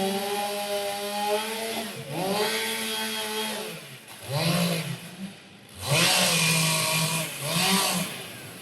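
Chainsaw engine running, then revved up and let down again in about three bursts, its pitch dipping and recovering as if bogging under load while cutting a log.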